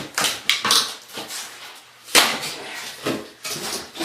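An old bathroom vanity cabinet being wrenched free: a run of scraping and knocking, with a sharp bang about two seconds in.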